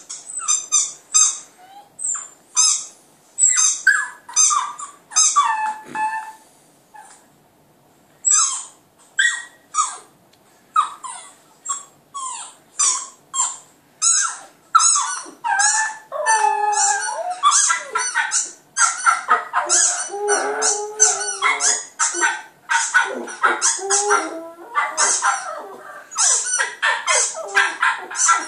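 Dog barks and yips in quick runs of short calls, with a short lull, then longer wavering howls mixed in from about halfway through.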